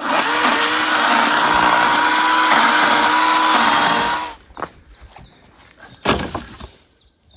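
Chainsaw cutting through a branch, running at full speed with a steady whine for about four seconds, then cutting off suddenly. A short thump follows about two seconds later.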